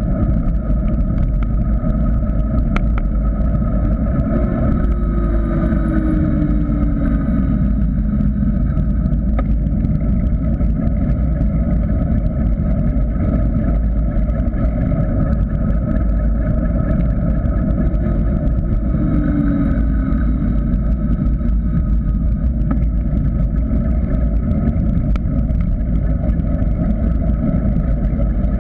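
Steady wind rush buffeting a bike-mounted GoPro Hero 3's microphone, with tyre rumble on asphalt, as a mountain bike coasts downhill at speed. Twice, about five and nineteen seconds in, a faint tone slides downward above the roar.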